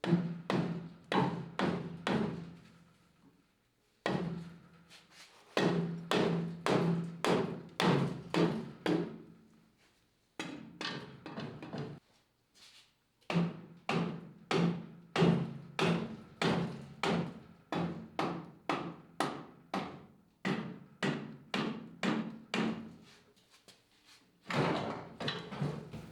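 Repeated hammer blows on metal, about two a second, each ringing briefly, in several runs broken by short gaps.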